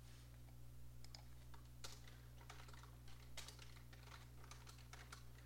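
Faint, irregular typing on a computer keyboard: scattered single keystrokes over a low steady hum.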